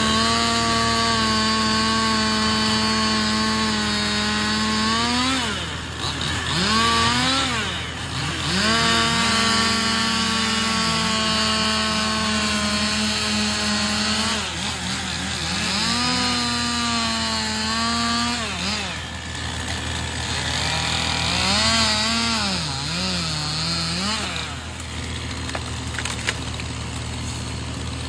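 Stihl chainsaw cutting felled maple limbs and trunk, held at full throttle through three long cuts with short revs up and down between them. A grapple truck's diesel engine idles steadily underneath.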